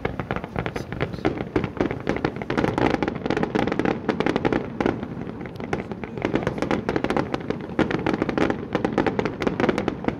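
Fireworks display: a dense, continuous barrage of rapid bangs and crackles from aerial shells and fountains, many a second without a break.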